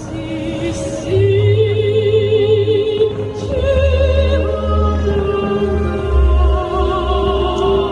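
Music with an operatic singing voice holding long notes with vibrato over a deep, steady bass.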